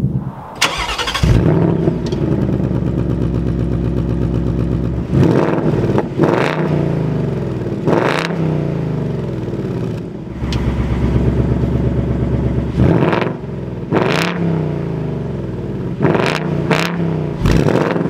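2021 Ford Mustang GT's 5.0-litre V8, freshly started, idling through its quad-tip active exhaust and revved in about nine short blips, each falling back to a steady idle.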